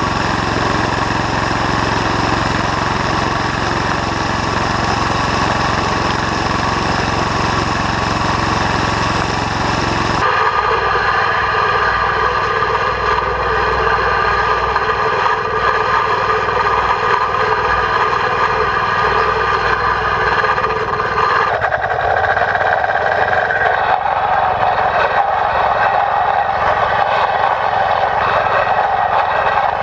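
13 hp engine of a two-wheel tractor running steadily while driving a cylinder mower. The sound of the engine changes abruptly about ten seconds in and again about twenty seconds in.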